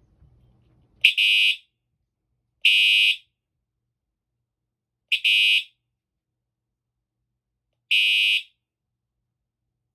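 Siemens U-MHST fire alarm horn giving four short blasts of a steady high tone, each about half a second long, at uneven gaps. It sounds only when the device is given a pulse of voltage.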